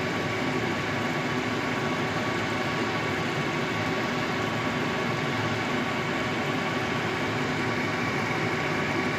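Steady, even hiss with a faint hum as pork adobo simmers in soy-vinegar sauce in a wok on the stove.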